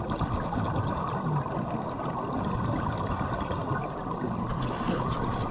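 Steady, muffled underwater rush of water picked up through a dive camera's housing, with no distinct events.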